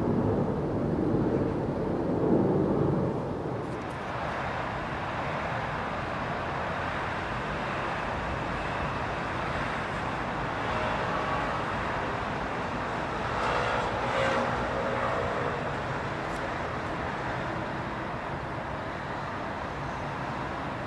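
Steady outdoor background noise, a broad rumble and hiss with no distinct events, heavier for the first few seconds; a faint hum rises and fades in the middle.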